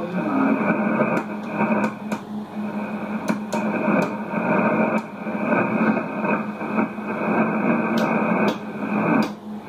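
Yaesu HF transceiver receiving on the 40-metre band between calls: a steady hiss of band noise with scattered sharp crackles of static.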